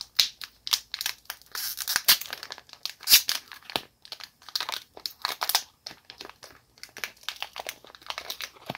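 Foil wrapper of a Pokémon TCG Scarlet & Violet booster pack crinkling and tearing as it is opened by hand: an irregular run of sharp crackles and rustles.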